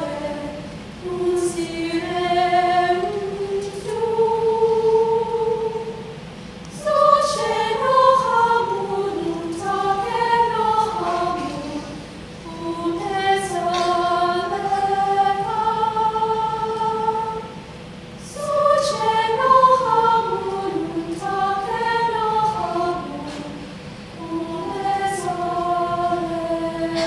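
A girls' choir singing a slow melody in phrases of about six seconds, with a brief breath between phrases.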